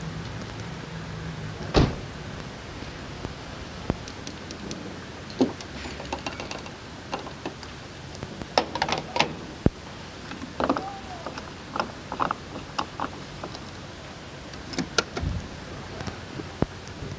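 Scattered clicks and clunks of a fuel nozzle and pump being handled at a filling station, heard from inside the car. A low hum stops with a sharp knock about two seconds in, and the clicks come thickest in the middle and again near the end.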